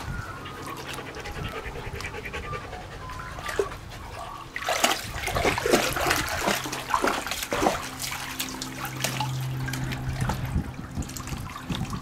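A husky wading and splashing through the water of an above-ground pool as it climbs out onto a wooden step, with sloshing and dripping. The splashing grows much busier about five seconds in. A steady low hum runs underneath.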